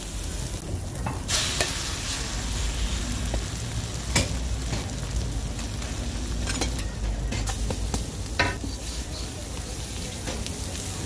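Egg-and-shredded-cabbage omelette batter sizzling steadily on a hot flat steel griddle with melted butter, as a ladle spreads more batter onto the plate. A few sharp clicks of the ladle and spatula against the griddle.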